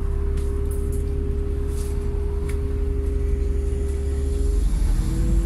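Bus running along the road, heard from inside the passenger cabin: a deep steady rumble with a steady whine over it. About four and a half seconds in, the whine drops in pitch and then slowly rises again.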